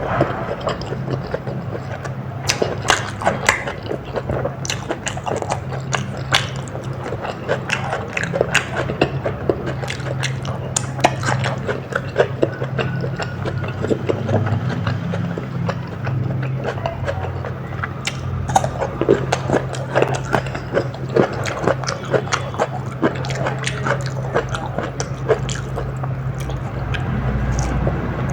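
Close-miked chewing and biting, wet mouth smacks and many small irregular crisp clicks, over a steady low hum.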